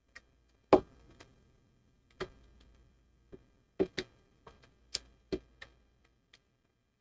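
Spring-loaded Kelvin test clips being opened and clamped onto the terminals of a large electrolytic capacitor: about a dozen irregular sharp clicks and snaps of clip jaws on metal, the loudest about a second in.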